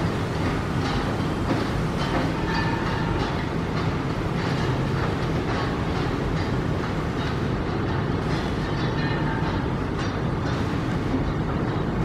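Steady low mechanical rumble with a faint, uneven rattle of clicks, holding the same level throughout.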